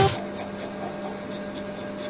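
Knife blade scraping the scales off a large fish, in quick repeated strokes about four a second.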